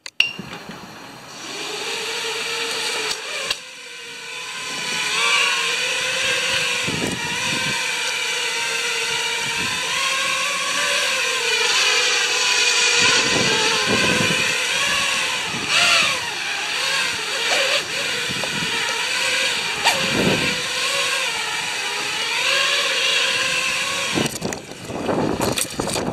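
Five-inch FPV racing quadcopter (Armattan Rooster frame with Armattan Oomph Titan 2306 2450KV motors) spooling up about a second in and flying a hover test, its props giving a buzzing whine. The whine wavers in pitch as the throttle is worked, grows louder a few seconds in, and drops away near the end.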